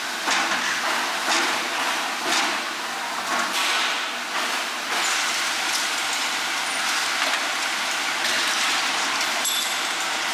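Food-processing machinery. First, a conveyor cutter slicing blocks of fish surimi, with a stroke about once a second. Then, from about five seconds in, the steady running of a mixer churning surimi paste in a steel bowl.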